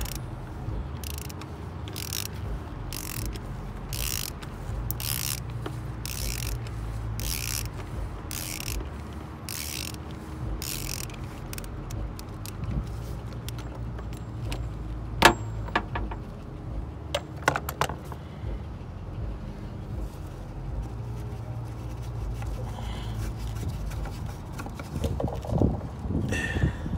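Socket ratchet clicking in short runs about twice a second as it loosens a cartridge oil filter housing cap, stopping after about eleven seconds. A few sharp clicks follow a few seconds later.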